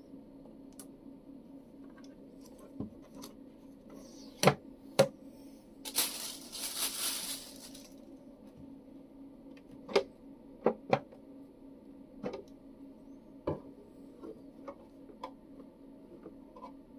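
Hard plastic clicks and knocks as a SUNLU FilaDryer S1 Plus filament dryer's clear plastic lid and black plastic base are handled and the lid is lifted off, with a brief rustle about six seconds in, over a faint steady hum.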